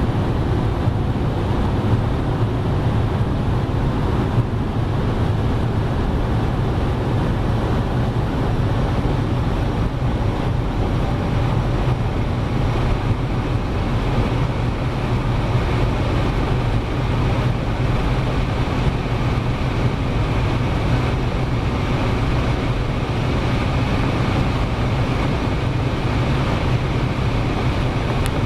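Steady drone of a car cruising at a constant speed: low engine hum mixed with tyre and wind noise, holding even throughout with no revving or gear changes.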